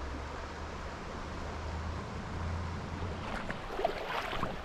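Steady rush of creek water with wind rumble on the microphone; from about three seconds in, irregular splashes and knocks of someone wading through the shallow creek.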